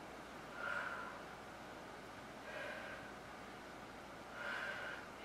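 A woman's breathing, three short breaths about two seconds apart, as she is still catching her breath after a high-intensity workout.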